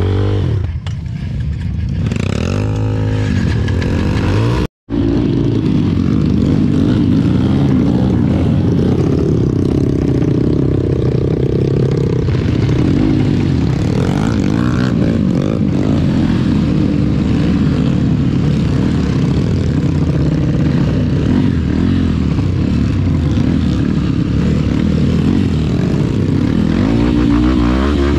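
Off-road dirt-bike engine noise, revving up and down under load, with one brief cut-out about five seconds in.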